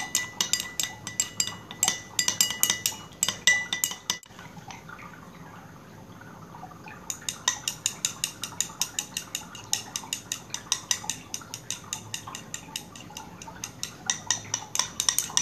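A utensil stirring aloe vera gel in a bowl, clinking rapidly against the side at about four or five strokes a second, as extract is blended into the gel. The clinking stops for about three seconds a few seconds in, then starts again.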